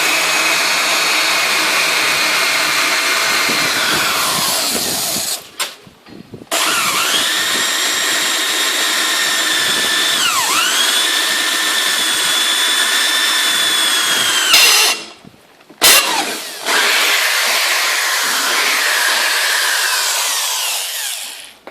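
Electric drill boring holes with a dull bit, its motor whining at a steady pitch. It winds down and stops briefly twice before restarting, and its pitch dips for a moment under load about ten seconds in.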